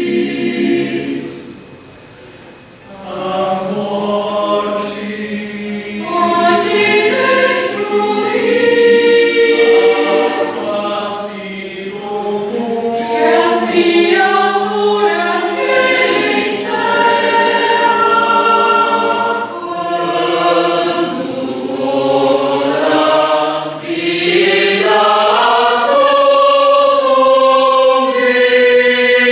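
Mixed choir of men's and women's voices singing unaccompanied in sustained chords, with a brief hush about two seconds in before the voices enter again.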